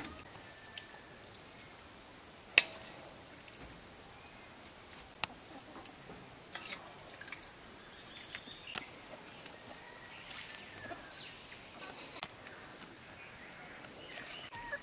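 Outdoor rural ambience with insects chirring steadily at a high pitch, pulsing at first. Scattered light clicks and knocks come through it, the loudest a single sharp click about two and a half seconds in.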